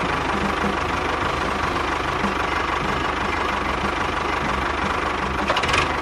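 An engine idling steadily with a fast, even chugging pulse.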